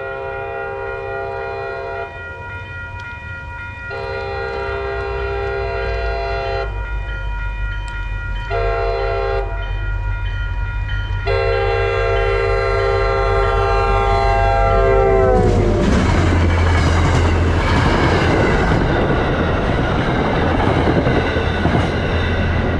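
MBTA F40PH-3C diesel locomotive sounding its horn for a grade crossing in the long-long-short-long pattern, the last blast dropping in pitch as it passes. The engine and the clatter of the commuter train rolling by then take over, louder.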